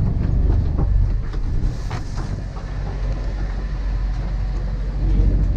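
Small passenger ferry's engine running under way, heard inside the cabin as a steady low rumble, with a few light knocks.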